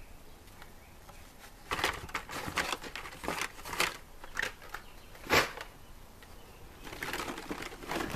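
Carded, blister-packed toy cars being handled and shuffled against each other in a plastic tub: irregular plastic and card rustling and clacking, with one sharper clack about five seconds in.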